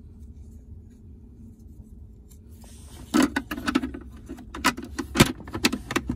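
A quick run of hard plastic clicks and rattles as the carbon-fibre-wrapped trim piece of an aftermarket wireless charger is handled and pressed into a Tesla Model 3's centre console. It starts about three seconds in, after a quiet stretch.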